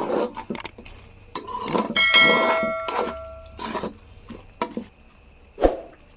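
Metal spoon stirring and scraping curry in a kadai, in short strokes and knocks. About two seconds in, a metal clang rings on briefly before fading.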